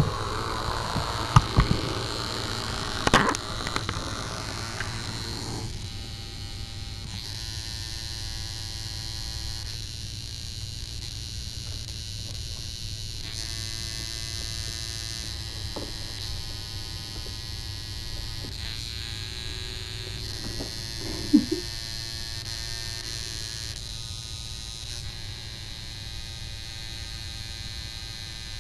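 A steady electrical hum with a thin high whine, broken by a few short knocks in the first few seconds and once more about twenty-one seconds in.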